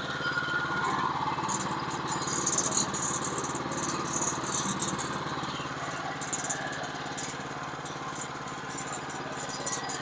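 Portable band sawmill's small engine running at a steady speed, with a light rattling of clicks over it.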